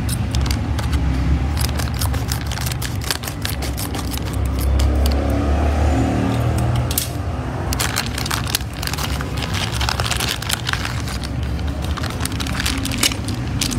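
Plastic Happy Meal toy packaging being handled and opened, with dense irregular crinkling and clicking, over a steady low rumble.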